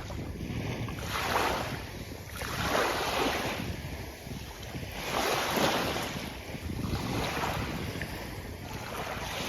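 Sea waves breaking and washing up a beach, the surf swelling and falling away every couple of seconds over a steady low rumble.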